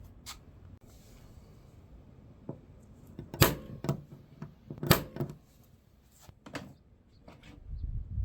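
A few sharp knocks and clicks from hard objects being handled, the loudest two about three and a half and five seconds in, with a low rumble building near the end.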